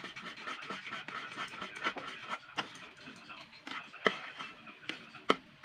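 Spatula stirring and scraping thick maja blanca batter (coconut milk and cornstarch) in a wok, with a rough, rhythmic scrape and a few sharp knocks of the spatula against the pan.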